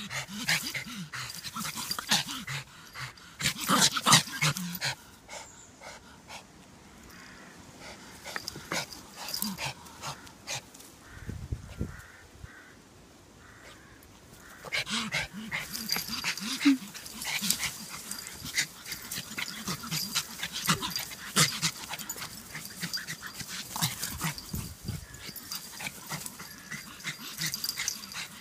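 A Yorkshire terrier and another small dog play-fighting, with growls and short sharp sounds coming in clusters, loudest about four seconds in; a quieter stretch comes in the middle before the play sounds pick up again.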